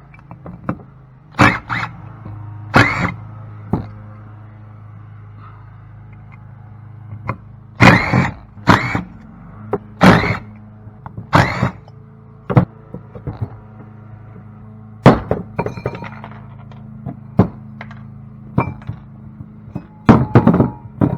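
Sharp, loud metal knocks and whacks on a cast aluminum pump housing as parts are driven or knocked out of it. There are about a dozen separate blows, some in quick pairs, with pauses of a second or more between them, over a steady low hum.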